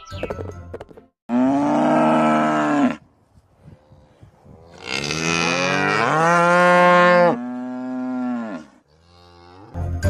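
Cow mooing: two long moos, the second longer and dropping lower near its end.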